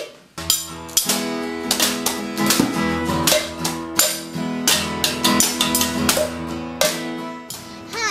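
Music: a strummed guitar with sustained chords over a steady beat of drum hits, coming in about half a second in after a short percussion lead-in.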